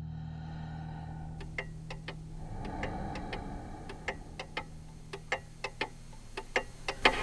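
A series of sharp clicks at uneven intervals, some twenty in all, starting about a second and a half in and loudest near the end, over a steady low hum.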